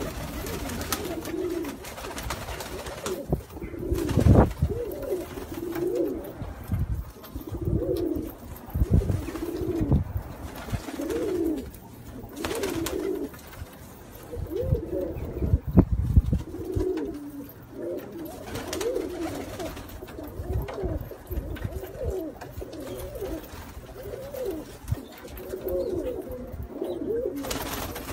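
Trakya makaracısı domestic pigeons cooing over and over, several birds calling in overlapping rising-and-falling coos. A few low thumps stand out, the loudest about 4 and 16 seconds in.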